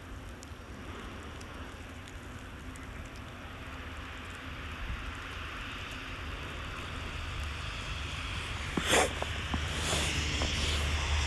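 Wind buffeting the microphone in a snowstorm, a steady low rumble with a hiss that grows a little louder toward the end. A brief sharp knock comes about nine seconds in, followed by a few faint clicks.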